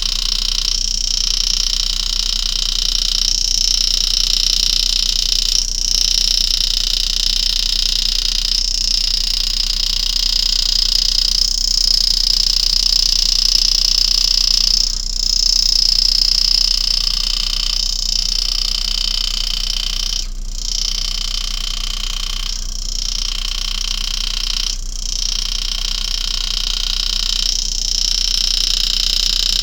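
Powered engraving handpiece buzzing at a steady high pitch as the graver cuts into the coin's metal, dipping briefly every two to three seconds.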